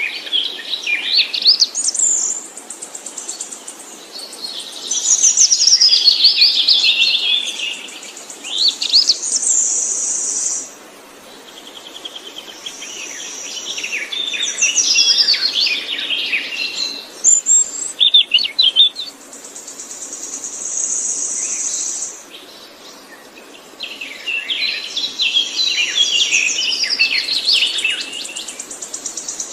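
A songbird singing long, rapid, warbling phrases of varied high chirps and trills, in bouts a few seconds long with short pauses between them. A steady high-pitched buzzing note comes in between some of the phrases.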